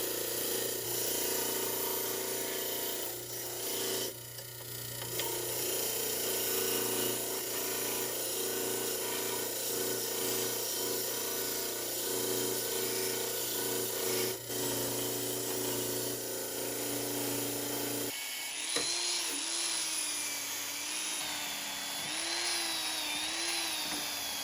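A small electric power tool, drill-like, runs steadily. After an abrupt change about 18 seconds in, its pitch wavers up and down as the load on it varies.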